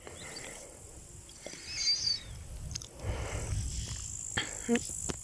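Crickets trilling steadily in a high, thin tone, with a low rumble about three seconds in and a few sharp clicks near the end.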